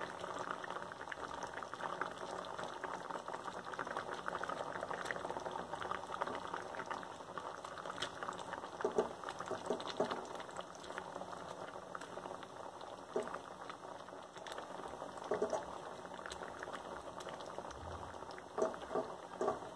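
Thick mirchi ka salan gravy of ground peanuts, sesame, coconut and yogurt bubbling and popping steadily in the pan over medium heat. There are a few louder bumps now and then.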